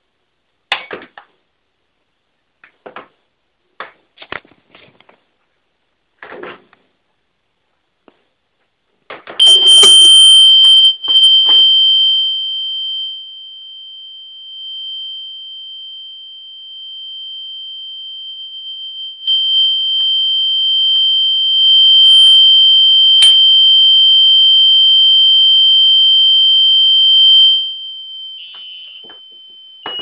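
A few scattered clicks and knocks, then about nine seconds in a homemade window alarm's piezo buzzer starts a steady, loud, high-pitched tone. The tone holds for most of the rest, is loud enough to overload the recording, and cuts off near the end. The alarm sounds when the armed window is opened.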